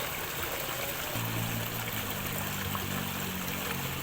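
Steady rush of a flowing stream, with a low steady hum joining about a second in.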